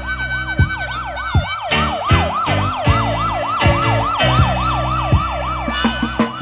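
Music track with a fast warbling siren-like sweep, about five rises and falls a second, over a bass line and drum beat.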